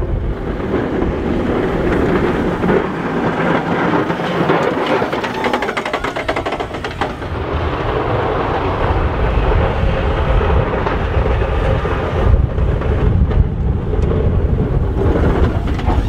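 Ford F-250 plow truck pushing heavy wet snow: the engine running while the plow blade shoves and scrapes the snow along the pavement. A heavy low rumble of wind on the microphone builds in the second half.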